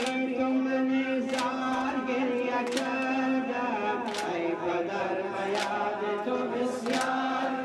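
Voices chanting a Muharram mourning chant in long held tones, with a sharp beat that falls about every second and a half in time with the chant.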